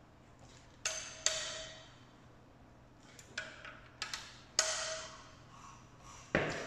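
A hand wrench tightening the cylinder head bolts of a VW Golf 1.8 TSI engine: about seven sharp metallic clicks in irregular groups, each ringing briefly.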